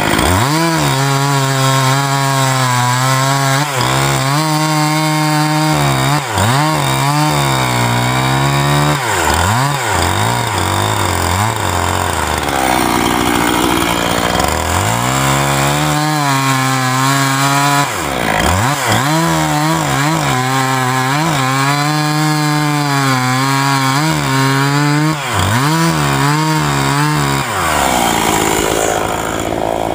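Chainsaw running hard while ripping lengthwise along a cedar log slab, its engine pitch repeatedly sagging as the chain bogs in the cut and climbing back as the load eases. It drops lower for a few seconds in the middle and fades near the end.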